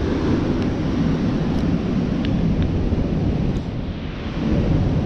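Steady low rumble of wind buffeting the microphone over breaking surf, with a few faint clicks.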